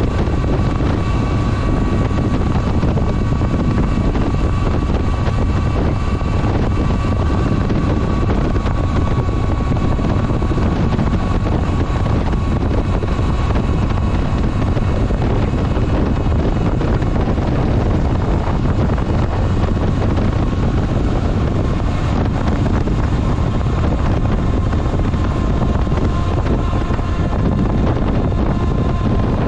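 Honda Nighthawk 750 motorcycle riding at a steady cruise, its air-cooled inline-four engine running evenly under heavy wind rush on the microphone.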